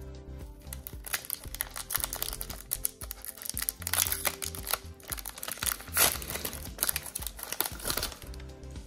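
Foil Pokémon booster pack wrapper crinkling as it is torn open and the cards are slid out, many quick crackles throughout.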